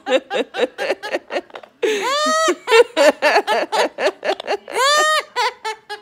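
Amazon parrot mimicking human laughter: quick runs of short ha-ha syllables, about five a second, broken twice by a longer drawn-out laughing call.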